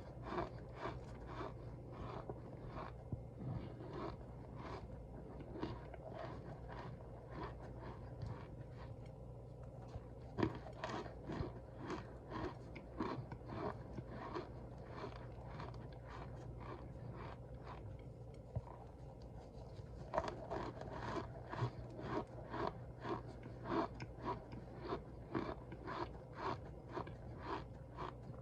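Cornstarch crunching and squeaking under pressure, a steady run of short crisp crunches about two or three a second, sparser for a few seconds past the middle, over a faint steady low hum.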